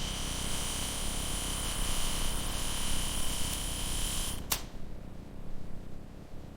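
Steady machine noise: a hiss with a high whine that stops at a sharp click about four and a half seconds in, leaving a lower hum.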